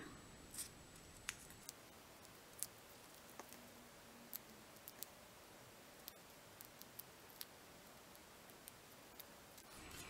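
Near silence, with faint scattered ticks and light handling noise as small ribbon pieces are wrapped around a cardstock strip by hand.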